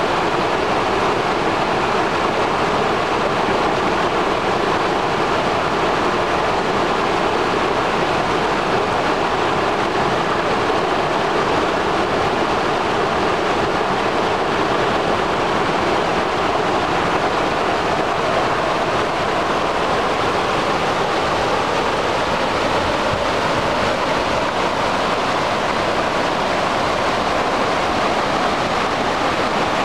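Flash-flooded Taughannock Creek rushing over a low rock ledge and through rapids: a steady, loud rush of water.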